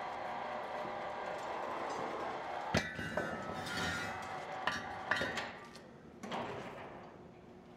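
Metal knocks and clinks from a steel foundry pouring ladle and its hoist frame being handled: one sharp knock about three seconds in, then a few lighter clinks, over a steady noise that fades out a couple of seconds later.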